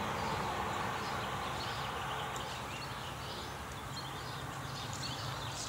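Small birds chirping here and there, over a steady low rumble of outdoor background noise.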